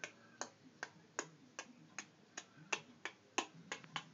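A run of about a dozen sharp clicks or taps, evenly spaced at roughly two and a half a second, coming a little closer together near the end.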